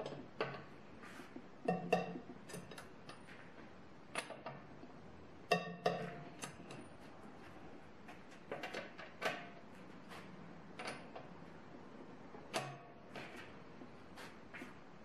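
Breaker bar and 21 mm socket clinking against a car wheel's lug nuts as the socket is fitted onto each nut and the bar is pulled to break it loose. Scattered sharp metal clinks and clacks, some with a brief ring.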